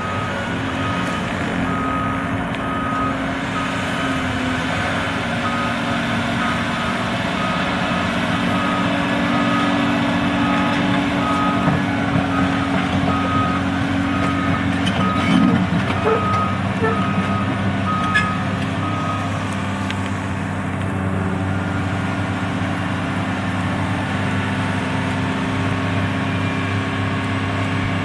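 Caterpillar 328D LCR excavator's diesel engine running steadily while its travel alarm beeps about once a second, stopping about two-thirds of the way through; a few metallic clanks come around the middle.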